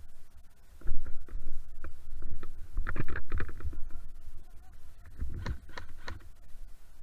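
Microphone handling noise: uneven low rumble and rustling with scattered clicks, loudest about a second in.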